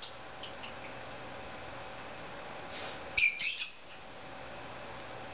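Cape parrot giving a quick burst of about four shrill, high-pitched squawks about three seconds in.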